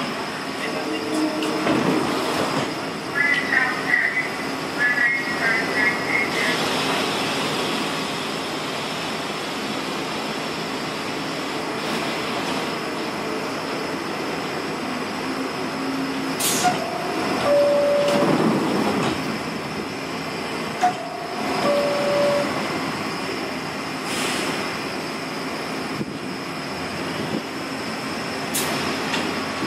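R62-series New York City subway train standing in the station with its ventilation and compressors humming steadily. The two-note falling door chime sounds twice, about halfway through and again a few seconds later, among a few sharp door knocks. A burst of quick high chirps comes a few seconds in.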